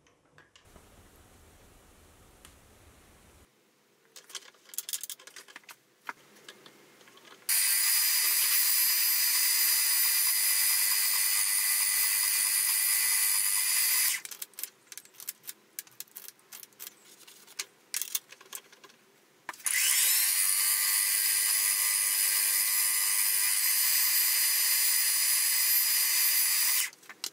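Benchtop milling machine running in two spells of about seven seconds each, milling an aluminium block clamped in the machine vise, with a steady high-pitched machining noise. The second spell starts with a rising whine as the spindle spins up. Scattered clicks and knocks fill the gap between the spells.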